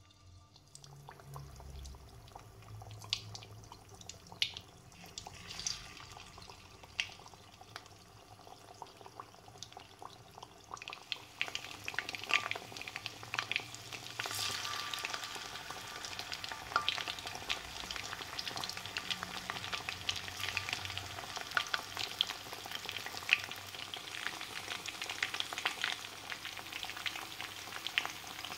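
Battered fish pieces deep-frying in hot oil, the first fry: a steady sizzle full of sharp crackles and pops. It grows louder and denser about eleven seconds in.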